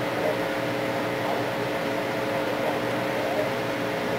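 A 1925 Oriole Model 7B battery radio heard through its speaker while being tuned between AM stations: a steady hiss of static with a low hum and faint wavering tones now and then.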